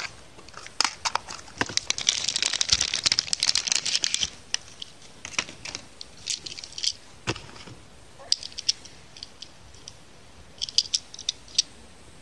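Clear plastic wrapping crinkling and tearing as a die-cast toy car is unwrapped, densest from about two to four seconds in. After that come scattered light clicks and taps as the small metal model is handled.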